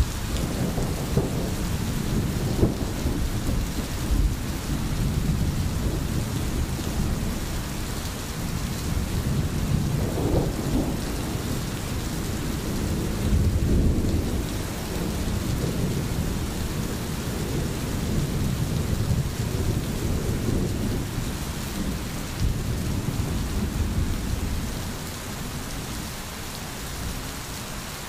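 Thunder rumbling, swelling and fading in rolls, over the steady hiss of rain; the rumble eases off near the end.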